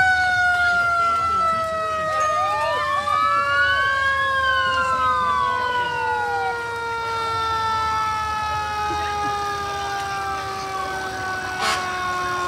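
Fire truck siren whose pitch winds down slowly and steadily after a quick spin-up. A second siren wails up and down over it twice.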